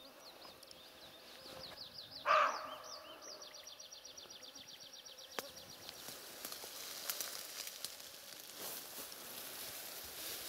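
A Siberian roe deer buck gives one short, hoarse bark about two seconds in, the alarm call of a deer that has heard a person. A bird's fast, high-pitched run of repeated notes goes on through the first half.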